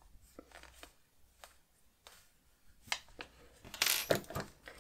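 Faint handling sounds of yarn and a crocheted piece: a few soft ticks as the yarn tail and tapestry needle are worked through the stitches, then a brief rustling scrape about four seconds in as a hand smooths the fabric.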